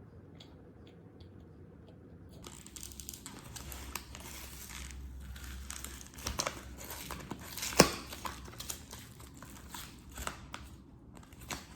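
Plastic packaging crinkling and being torn open, starting about two and a half seconds in: a dense run of crackles, with one sharp loud click a little before eight seconds.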